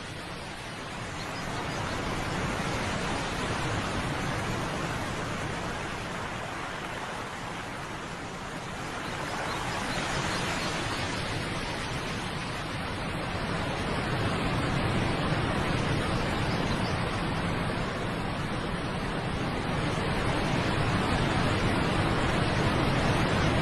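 Steady rushing of a waterfall, swelling and easing a little and growing louder toward the end.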